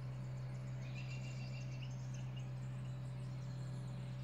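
A low, steady hum, with a few faint high chirps between about one and two and a half seconds in.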